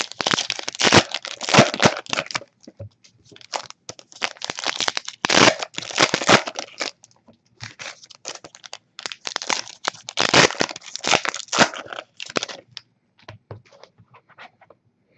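Crinkly wrapper on a Topps Finest trading card box being torn and crumpled off by hand: three long bursts of crackling with short pauses between, then a few lighter rustles and clicks near the end.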